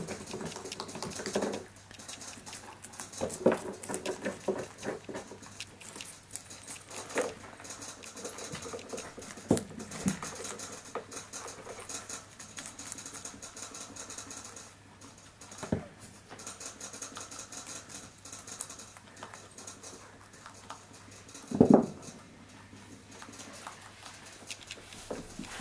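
Young rabbits chewing watermelon rind: a fast, dense patter of small crisp bites, with a few louder single knocks, the loudest about three-quarters of the way through.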